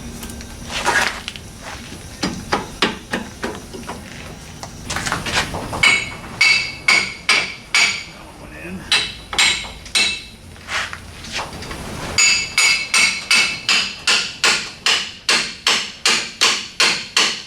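Hammer striking steel again and again, each blow with a short metallic ring. A few scattered blows give way to a steady run of about two a second, which quickens to about three a second near the end.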